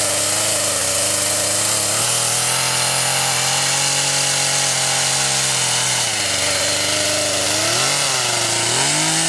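Poulan Pro two-stroke gas chainsaw running at high revs while cutting through a log. The engine note holds steady, then rises and dips several times in the last few seconds as the throttle is worked in the cut.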